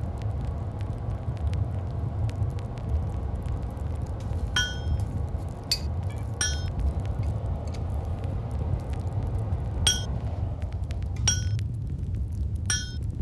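Blacksmith's hand hammer striking hot iron on an anvil: about six bright, ringing blows spaced a second or more apart, with lighter taps between. A steady low rumble runs underneath and drops away a couple of seconds before the end.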